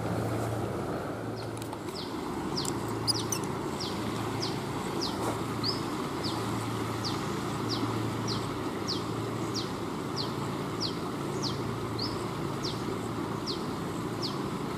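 Steady rush of a flowing river, with a bird repeating a short, high note that falls in pitch, about twice a second from a second or so in.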